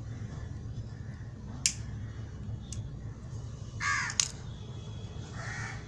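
A crow cawing, once clearly about four seconds in and once more faintly near the end, over a steady low hum, with a couple of sharp clicks.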